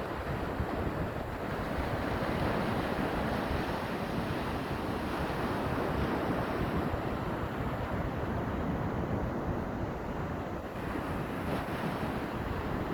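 Steady wind buffeting the microphone, with the wash of waves underneath.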